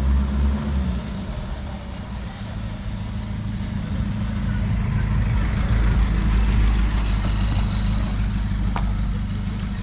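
Engine of a homemade three-wheeled all-terrain motor vehicle running steadily on the move, a low even hum that grows louder around the middle.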